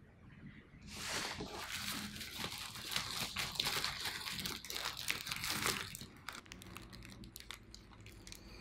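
Paper burger wrapper crinkling as a hamburger is unwrapped, loud from about a second in to about six seconds, then a few fainter crinkles.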